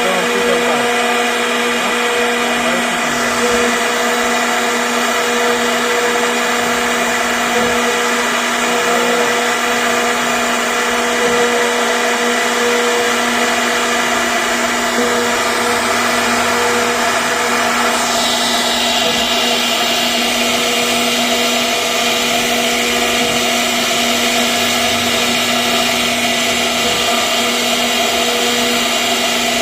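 CNC router spindle running steadily with a constant whine while its bit cuts wood. About eighteen seconds in, the high hissing part of the sound glides down and settles lower.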